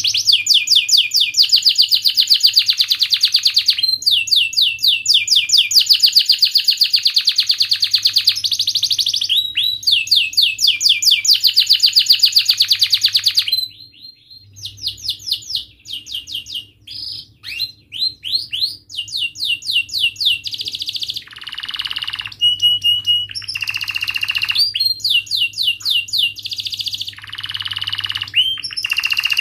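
Domestic canary singing: long, fast rolling trills of rapidly repeated notes, then after a brief break about halfway, shorter varied phrases of chirps, trills and a few held notes.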